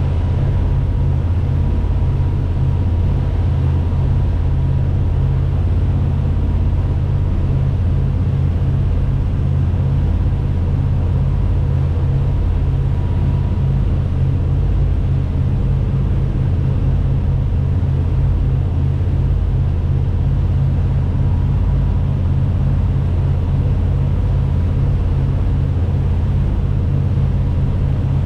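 Boat engine running at a steady speed underway: a loud, even low drone with no change in pitch.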